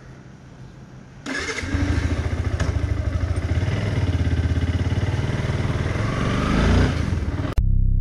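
Yamaha R15 motorcycle's single-cylinder engine, low at first, then pulling away from about a second in and running with wind noise over the microphone, its pitch rising near the end as it accelerates. The sound then cuts off abruptly into an electronic track with a drum-machine beat.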